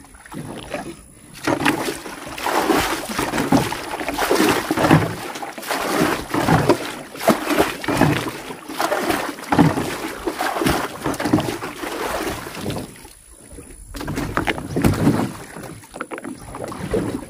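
Water splashing and sloshing around a small boat as it rocks, in irregular bursts, with a short lull about 13 seconds in.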